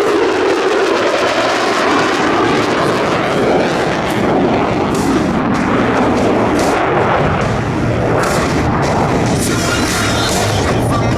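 Loud, rough jet noise from the F-35A Lightning II's F135 afterburning turbofan during a display pass, crackling throughout and rising and falling slightly as the jet moves.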